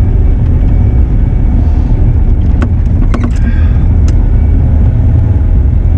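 Diesel engine of a compact track loader running steadily while it moves dirt, with a few brief knocks about halfway through.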